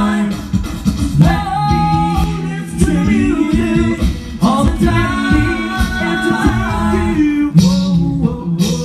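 Male a cappella vocal band singing live through handheld microphones: several voices in close harmony over a sung bass line, with sharp percussive clicks.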